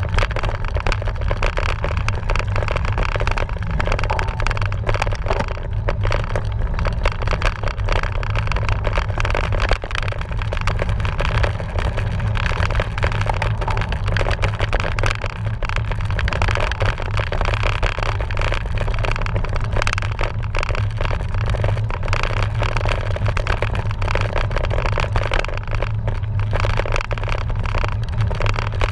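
Steady, loud rumble of riding a cyclocross bike over rough off-road ground, with wind on the microphone and a dense, irregular rattle and crackle from the bike and tyres.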